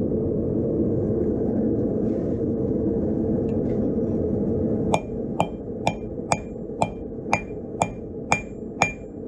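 A steady low rushing noise, then about five seconds in a blacksmith's hammer starts striking steel on an anvil, about two blows a second, nine in all, each blow leaving a short high ring from the anvil.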